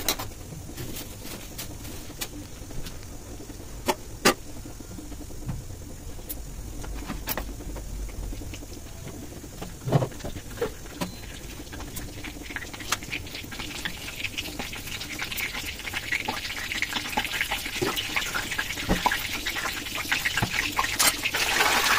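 Hot oil with garam masala in a kadhai on a gas flame, crackling with scattered sharp pops, its sizzle growing steadily louder over the second half as the oil heats.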